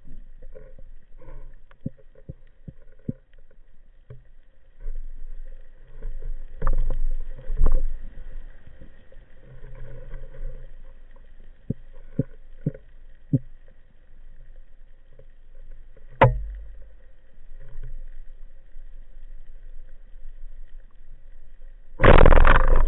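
Underwater sound picked up by a spearfisher's camera: a low water rumble with scattered clicks and knocks, one sharp crack about 16 seconds in, and a sudden burst of loud rushing water noise near the end.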